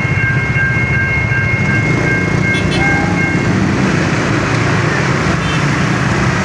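Railway level-crossing warning alarm sounding a pulsing electronic tone over the low rumble of a passing train. The alarm cuts off suddenly about three and a half seconds in, while the train rumble carries on.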